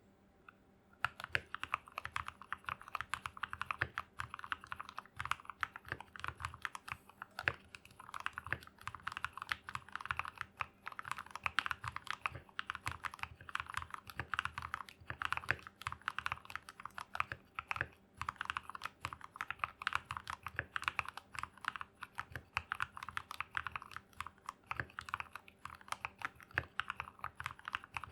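Feker84 mechanical keyboard with Gateron Yellow linear switches being typed on continuously, a quick, uneven run of key clacks starting about a second in.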